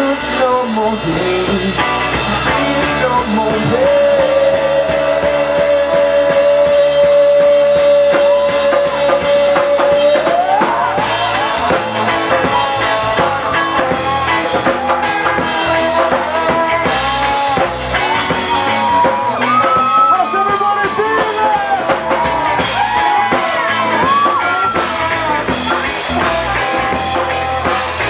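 Live band playing reggae with drum kit, bass and electric guitar. A lead line holds one long note for several seconds, then slides up into a run of bending notes.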